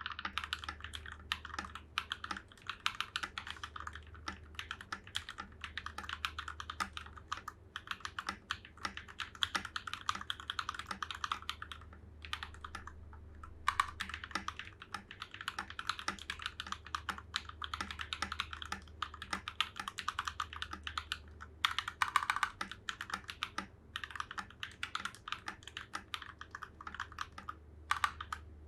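Typing on a budget 65% custom mechanical keyboard (TM680 case) fitted with Akko CS Rose Red linear switches: quick runs of key strokes with brief pauses. A faint steady low hum lies underneath.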